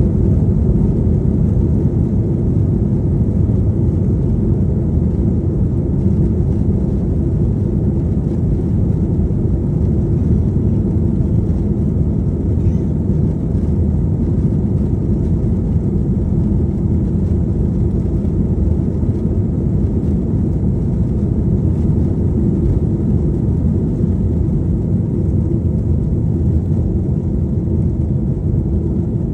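Airliner engines and airflow heard inside the passenger cabin during take-off: a loud, steady low rumble with a faint hum, unchanging throughout.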